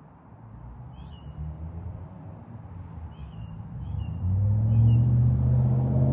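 1996 Acura Integra GSR's four-cylinder engine heard through a newly fitted aftermarket catback exhaust. It runs low at first, then grows louder, jumping sharply about four seconds in to a loud, steady exhaust note. Birds chirp faintly in the background.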